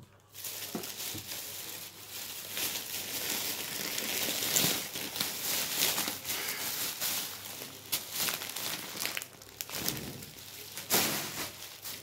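Thin plastic bag crinkling and rustling as it is handled, in irregular bursts with sharper crackles, loudest about four and a half seconds in and again near the end.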